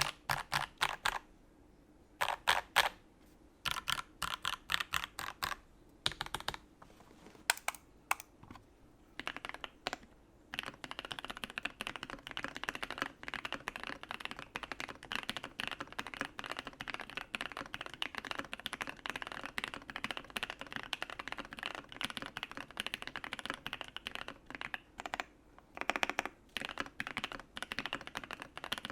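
Typing on a U80-A SEQ2 custom mechanical keyboard with a brass plate and lubed, filmed switches. Short rapid bursts of keystrokes with pauses for the first ten seconds or so, then steady fast typing, a brief pause near the end, then a few more bursts.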